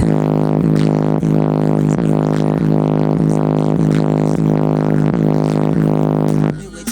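Car stereo playing through subwoofers hangs on one sound: a loud, steady buzzing drone with a quick repeating pulse, which stops after about six and a half seconds when the rap track carries on. This is the CD skipping, which the owner blames on the bass.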